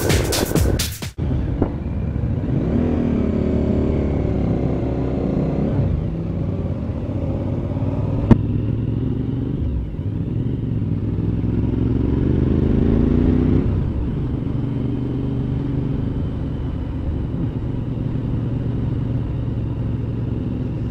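Motorcycle engine running on the move with wind and road noise, its pitch rising twice as it accelerates. A single sharp click about eight seconds in.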